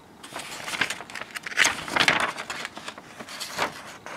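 Paper rustling and crinkling as a printed booklet and a folded instruction sheet are handled and opened out, in a string of rustles loudest about two seconds in.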